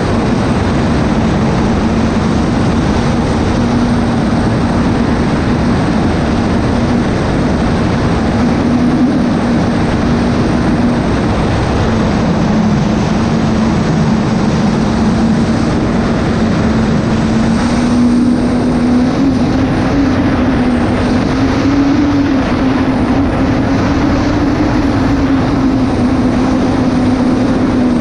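Unlimited hydroplane's Lycoming T55 turbine engine running at speed, heard onboard: a loud, dense rush of engine, wind and water over a steady droning tone that wavers and rises slightly in pitch in the second half.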